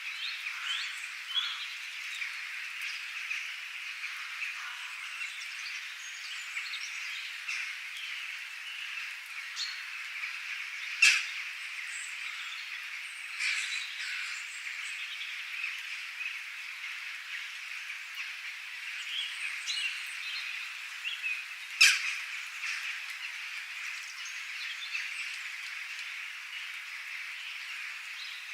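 Birds chirping and calling in many short notes over a dense, steady high chorus. Two short sharp calls stand out as the loudest sounds, about eleven and twenty-two seconds in.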